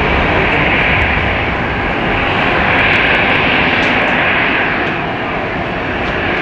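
GE90 jet engines of a Boeing 777 freighter running on the runway: a loud, steady jet noise with a hissing upper band over a low rumble, swelling slightly about three seconds in.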